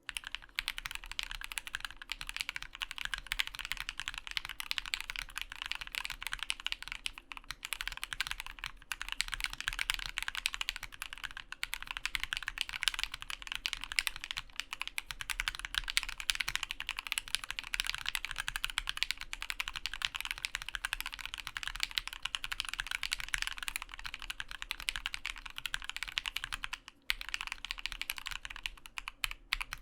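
Steady typing on a Prime_E mechanical keyboard with C3 Tangerine v2 linear switches (62 g, filmed and lubed), an acrylic plate and stacked acrylic case, and PBT keycaps. The key strokes come in a dense, continuous patter, with a brief pause near the end.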